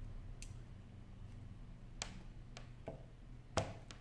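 Scattered light clicks and taps of a precision screwdriver and small parts handled on an iPhone 6 display assembly, about five in all, the sharpest about three and a half seconds in, over a low steady hum.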